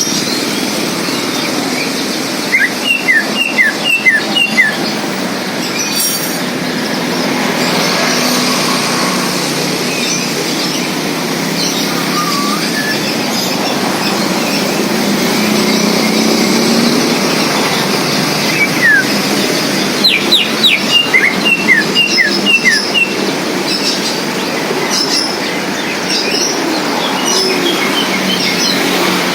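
Greater green leafbird (cucak ijo) singing: two bursts of rapid, sharp, loud chirping notes, a few seconds in and again about two-thirds through, with scattered fainter notes between. A steady rushing noise runs underneath throughout.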